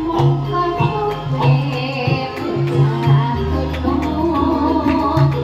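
Live band music with a steady drum rhythm, a bass line and melodic instruments.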